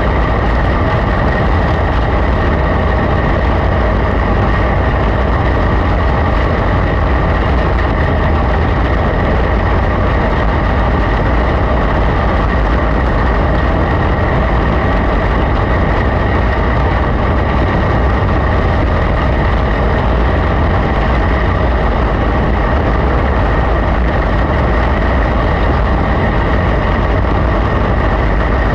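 Engine of a winged dirt-track race car, heard from an onboard camera, running loudly and steadily at high revs with little change in pitch.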